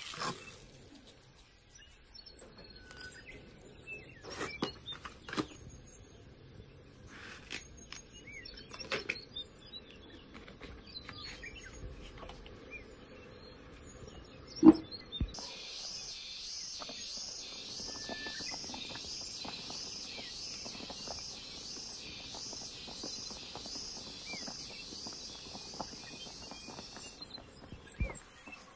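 Scattered light clinks and knocks around a metal cooking pot, with one sharp knock about halfway through. Then a high-pitched chirping starts, repeating about twice a second for some twelve seconds and stopping shortly before the end.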